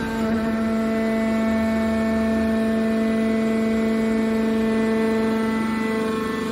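Hydraulic power unit of a scrap metal baler running: the electric motor and oil pump give a steady whining hum.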